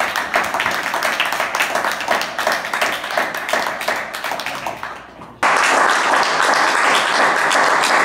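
Audience applauding. About five seconds in, the clapping jumps abruptly louder and denser.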